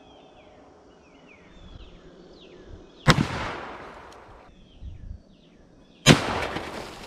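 Smith & Wesson 460 XVR revolver firing .460 S&W Magnum rounds: a very loud shot about three seconds in and another about three seconds later, each with a long rolling echo. Birds chirp faintly in between.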